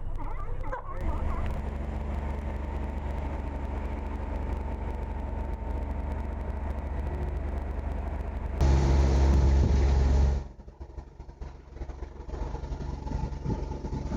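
A boat's motor running steadily with a low hum. It suddenly gets louder for a couple of seconds near the middle, then drops off sharply to a quieter, uneven sound.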